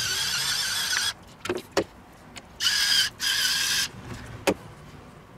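Battery-powered electric pepper mill grinding, its small motor whirring steadily. It stops about a second in, then runs again in two short bursts; a single knock follows near the end.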